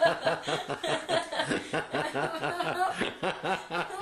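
A young woman laughing in a long run of quick, even pulses.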